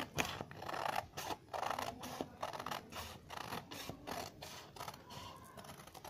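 Scissors cutting through a sheet of coloured paper, slicing off a thin strip: a run of short snips and rasping cuts one after another.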